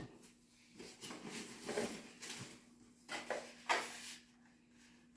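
Quiet handling of model-plane parts and packaging: a few short rustles and light knocks, over a faint steady hum.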